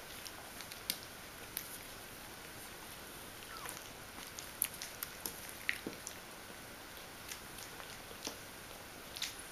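Bichon Frisé puppies play-biting and mouthing each other on a fleece dog bed: faint scattered small clicks and soft rustling, with one short faint squeak about three and a half seconds in.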